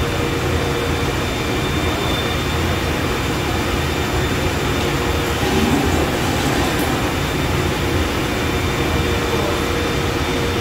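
Steady whirring and rushing of a workshop dust collector and a sliding-table panel saw running, with a constant hum and no cut or impact heard.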